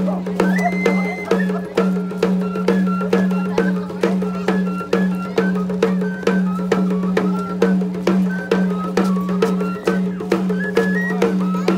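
Tlacololeros dance music: a high flute plays a melody in stepped notes over steady drum strokes, about three a second, with a constant low tone beneath.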